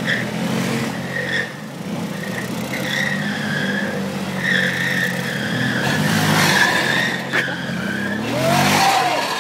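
Several motor scooter engines running as the scooters manoeuvre, with a high, wavering squeal coming and going from tyres skidding on the pavement. One engine revs up near the end.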